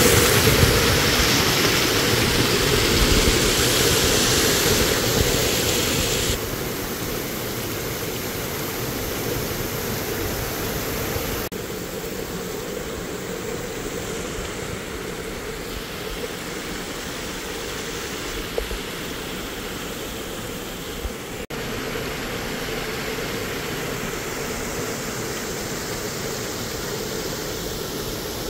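Water rushing and splashing over low stone ledges of a small seasonal waterfall, a steady rushing noise. It is loudest at first and drops in level about six seconds in and again about eleven seconds in.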